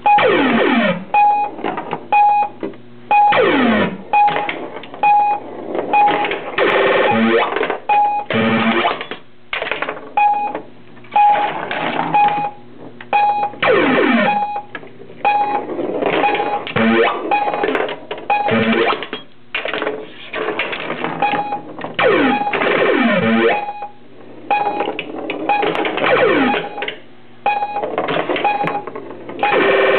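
Electronic sound effects from a 1979 Williams Stellar Wars pinball machine: a short beep repeating at an even pace, and falling synthesized sweeps every several seconds, over a steady low hum.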